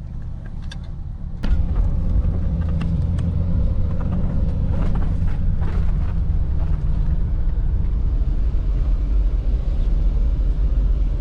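A loud, steady low rumble that sets in suddenly about a second and a half in, with a few faint clicks over it.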